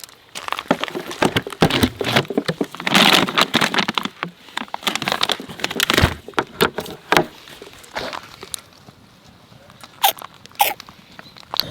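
A dog crunching and chewing a hard treat: a dense run of irregular crunches, thinning out to a few scattered ones in the last few seconds.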